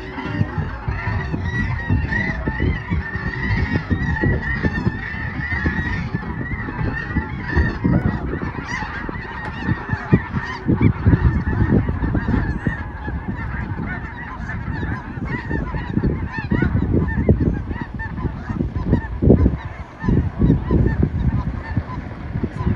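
A large flock of geese honking all at once, a dense, continuous chorus of overlapping calls, with an uneven low rumble underneath.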